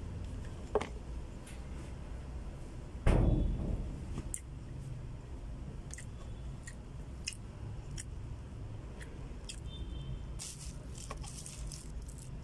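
A man eating rice with squid adobo and pancit: chewing, with scattered clicks of a spoon against a plastic food container. About three seconds in there is one loud thump, the loudest sound, over a steady low hum.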